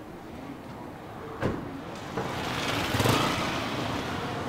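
A motor vehicle passing close by on the street: its engine and tyre noise swell to a peak about three seconds in, then fade. A single sharp knock comes just before it.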